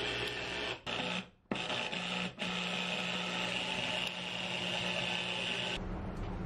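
Small electric citrus juicer (Dashin brand) running steadily, its motor spinning the reamer as lime halves are pressed onto it. The sound cuts out briefly a few times early on and stops near the end.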